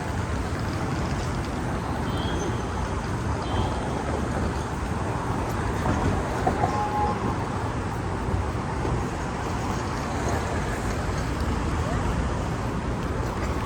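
Steady road traffic noise from a busy city street, the low rumble of passing vehicles' engines and tyres.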